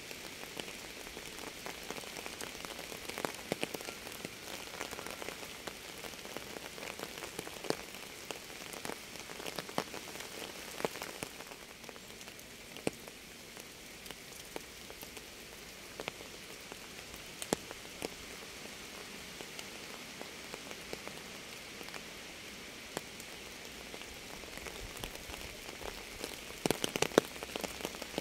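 Rain falling steadily on a surface: an even hiss dotted with single louder drop hits, and a quick run of louder drips near the end.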